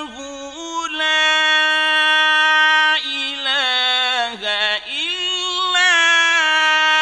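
Quran recitation in the mujawwad style by a solo male reciter: long, drawn-out held notes with melismatic ornaments. The voice steps up in pitch just under a second in, drops about three seconds in and wavers through trills, then slides up into a new held note with a quavering ornament near the end.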